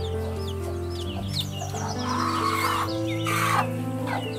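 Baby chicks peeping in short, high chirps, over background music with held, slowly changing notes; a couple of rougher, rasping sounds come about two and three and a half seconds in.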